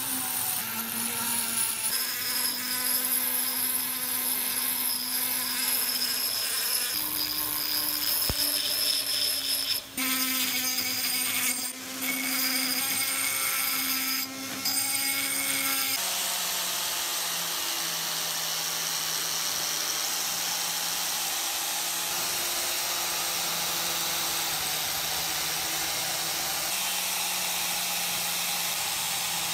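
Small rotary tool with a pink abrasive grinding stone grinding rust off a steel key, a steady motor whine with grinding hiss and a few brief breaks. About halfway it changes to a lower, steadier motor hum as a red abrasive disc spins against the lock plate.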